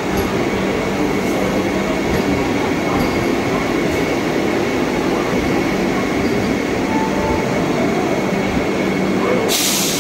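Vande Bharat Express electric trainset rolling past along the platform: a steady rumble of wheels and running gear with a low hum underneath. A short hiss comes near the end.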